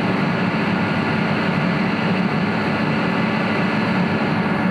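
Two industrial rotary screw air compressors, a Kaeser and an Atlas Copco, running on load and building air pressure at about 4 bar: a loud, steady machine drone with faint steady whining tones above it.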